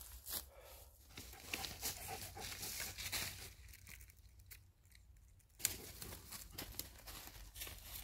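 Irregular rustling and crackling of dry leaf litter and twigs underfoot, with a quieter pause after about three and a half seconds and a sharp snap about five and a half seconds in.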